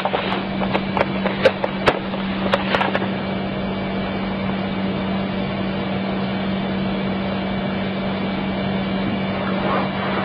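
Steady electrical hum and hiss from a CCTV system's audio, with a few sharp clicks or knocks in the first three seconds.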